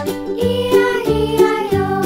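Children's background music: a bright tune of pitched notes over bass notes that repeat at an even beat.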